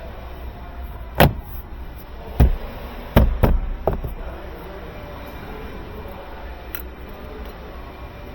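Car parts being put back in place by hand: a handful of sharp knocks and snaps, the loudest about a second in and about three seconds in, then only a low steady background.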